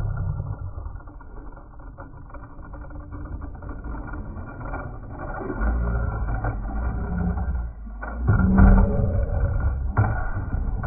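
Slowed-down, deep rumble of die-cast toy monster trucks rolling down a wooden board, getting louder about two-thirds of the way through. A few sharp knocks follow as they run into a plastic snow sled.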